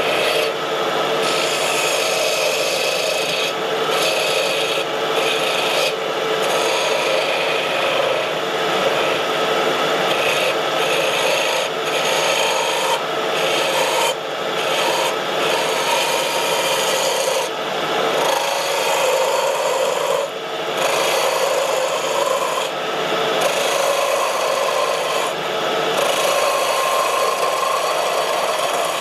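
Wood lathe spinning a pine blank while it is worked, a continuous rough scraping hiss with a faint steady hum from the machine underneath.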